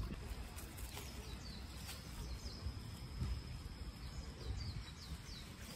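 Outdoor ambience of low, steady rumbling noise, with a few faint high bird chirps about two seconds in and a short run of them near the end.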